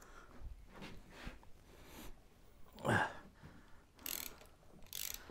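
Ratchet spanner clicking faintly in short bursts as the last spark plug is undone from a Reliant 700cc engine, with one brief louder sound about three seconds in.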